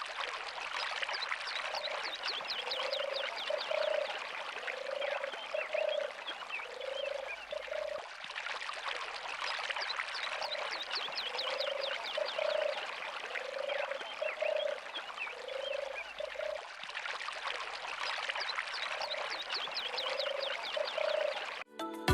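Chorus of frogs croaking, with short low calls recurring about once a second under a dense mass of high chirps and trills.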